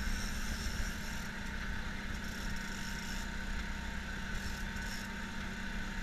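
Sportfishing boat's engine running steadily at low speed: an even drone with a low hum and a higher whine.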